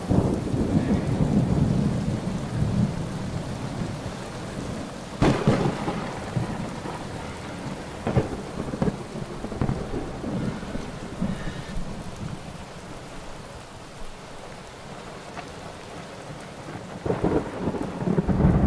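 Thunderstorm: thunder rumbling over a steady hiss of rain, with a sharp crack of thunder about five seconds in, a smaller clap around eight seconds, and another loud rumble near the end.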